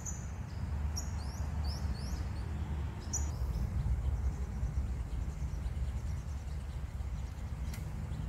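Sunbirds giving short, high, sharp chirps in quick series during the first three seconds, with fainter chirps again near the end. A steady low rumble runs underneath.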